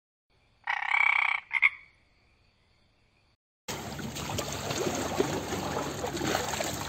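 A frog croaking: one croak of nearly a second, then a brief second one. From a little past halfway, a steady rough noise takes over.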